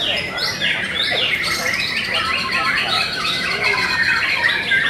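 White-rumped shama (murai batu) singing in its contest cage: a fast, unbroken run of varied whistles, pitch glides and harsh chattering notes, with other birds singing at the same time.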